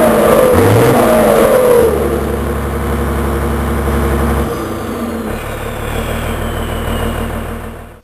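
VW 14.210 truck's turbo diesel engine revved in quick rising blips, then settling toward idle. Its turbocharger, fitted with a comb over the intake to make it whistle, gives a high whistle that falls in pitch as it spools down, and the sound cuts off at the end.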